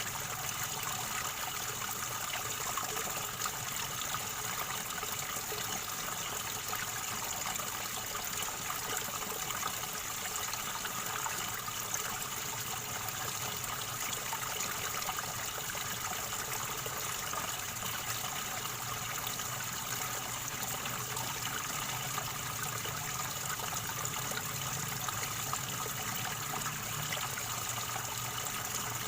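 River water gurgling and rushing steadily, an even wash of water noise with no break.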